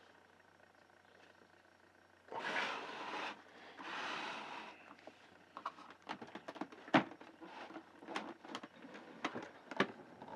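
Handling noises: two brief rushes of noise, then a scattered run of small knocks and clicks.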